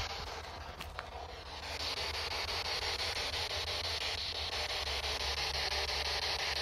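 Spirit box (SB11 radio-sweep device) running, giving a steady hiss of radio static that is finely chopped as it sweeps through stations, with one sharper click about a second in.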